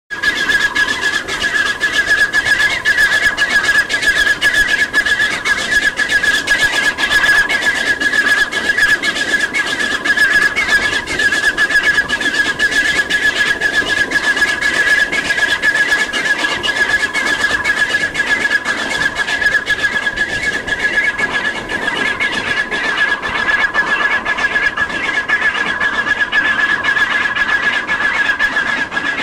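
Narrow-gauge 2-6-2T steam locomotive working hard up a long, steep grade, heard from an open carriage window: a continuous run of rapid exhaust beats and train noise, with a steady high-pitched whine throughout.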